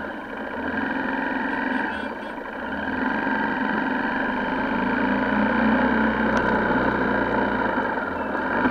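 Honda XR125L single-cylinder motorcycle engine running steadily while riding slowly through traffic, mixed with wind and road noise on the camera, growing a little louder partway through.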